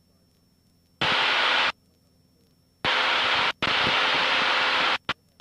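Aircraft VHF radio in the headset breaking squelch: several bursts of static hiss, the first about a second in and a longer run from about three seconds, each switching on and off abruptly with no readable speech.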